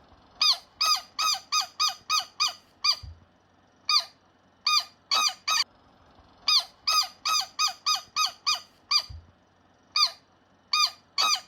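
Farm bird calling: a long series of short, sharp calls, about three a second, in runs of several with brief pauses between them.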